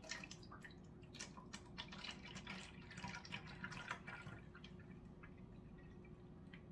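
Homemade apple cider vinegar poured from a glass jar through a mesh strainer, pattering and dripping into a bottle below. The drips come thick and fast for about four and a half seconds, then thin out to a few.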